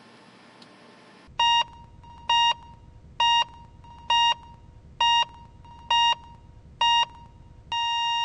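Heart-monitor beeping, seven short electronic beeps a little under a second apart, then the beeps give way to one continuous flatline tone near the end: the monitor's sign that no heartbeat is detected.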